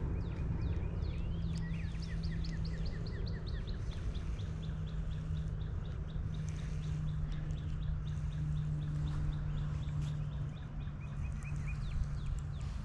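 Birds chirping in quick runs of short falling notes, busiest in the first few seconds and continuing more sparsely, over a steady low hum.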